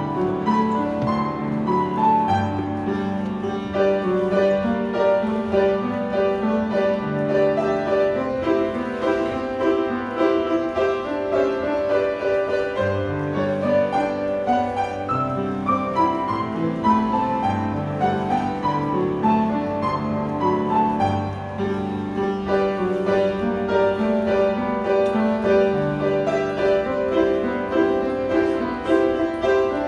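Instrumental classical-style music led by piano, playing steadily with a flow of pitched notes over held low notes.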